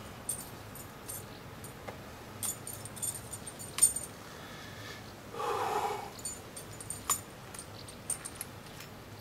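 Small clicks and rustles of a cloth wrist strap being wrapped around the hand, one sharper click a little before halfway. Just after halfway comes a short pitched sound of under a second.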